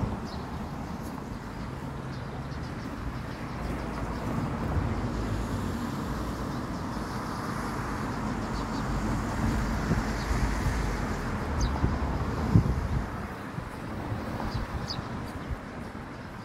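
Street traffic ambience: vehicles passing on a nearby road, the rumble swelling through the middle and easing off near the end. A single sharp thump comes about twelve seconds in, and a few short high chirps sound now and then.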